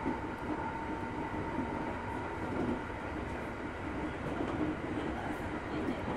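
JR East Tokaido Line local electric commuter train running between stations, heard from inside the car: a steady rumble of wheels on the rails, with a thin whine that fades out within the first two seconds.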